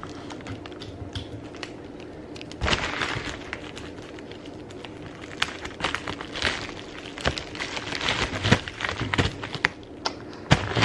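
Packing tape being applied to seal a plastic mailer bag: irregular clicks, taps and crinkles of the handled plastic and tape, with a louder scratchy burst about three seconds in.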